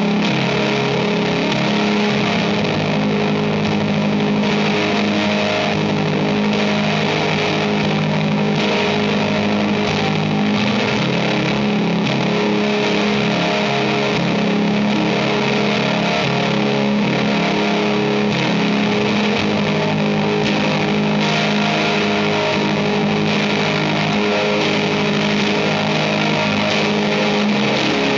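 Electric guitar (Telecaster Deluxe) played through a Tape Audio Co. ONE tape-style compressor and a Tomcat Pedals Daydreamer echo/reverb for a shoegaze sound: a steady, dense wash of held notes that blur into one another.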